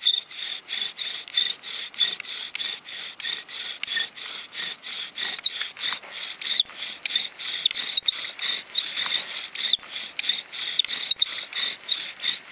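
Bow drill for friction fire: a wooden spindle driven back and forth by the bow's cord, grinding in the notch of a wooden fireboard with a rhythmic rasp and a high squeak, about three to four strokes a second. The wood is being worked to build heat toward smoke and an ember.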